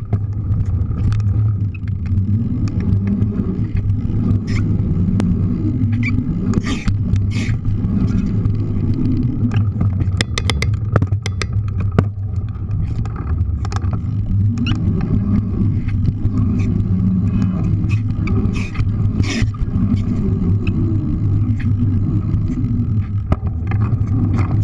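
Mountain bike tyres rolling fast over a paved pump track: a steady low rumble of tyre and wind noise that swells and eases in slow waves as the bike pumps over the rollers and berms. A quick run of sharp rattling clicks comes about ten to eleven seconds in.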